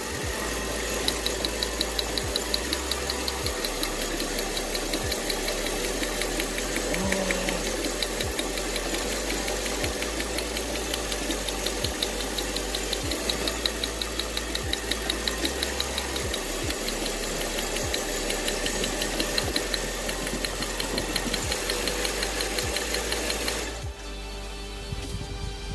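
Mercedes CLS500's V8 engine running at idle with a rapid, regular ticking and a low thud about once a second, an uneven idle typical of its cylinder misfire. Near the end the engine sound drops away and music takes over.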